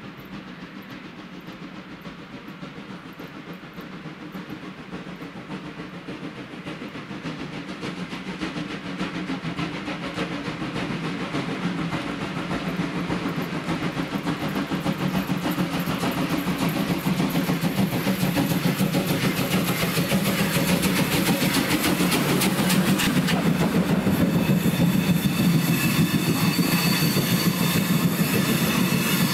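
Steam locomotive 50 3648 hauling a passenger train, growing steadily louder as it approaches under steam. Near the end the coaches roll past close by with wheel clatter on the rail joints and a thin high squeal from the wheels on the curve.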